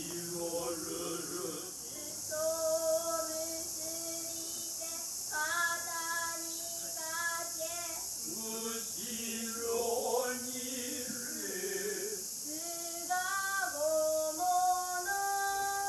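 Noh chant (utai) accompanying a shimai dance: a fairly high voice sung in long held notes that step up and down between pitches.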